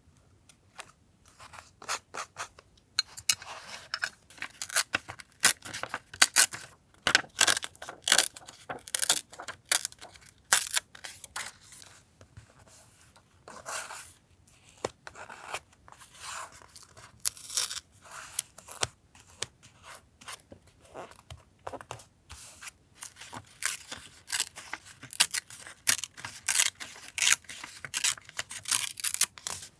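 Paper being handled for collage journaling, cut and torn by hand: a dense, irregular run of short, sharp snips and rips, starting about a second in.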